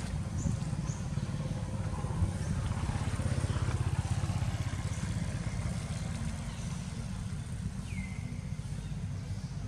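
A small engine running steadily at low revs, a low continuous rumble. A single short descending chirp sounds about eight seconds in.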